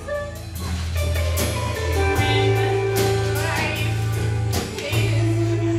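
A song: a singing voice holding notes over a steady bass line, with a drum beat.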